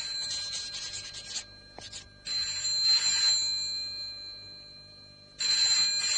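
Desk telephone's bell ringing in repeated rings: one ring runs to about a second and a half in, the next starts just after two seconds and fades, and a third starts near the end.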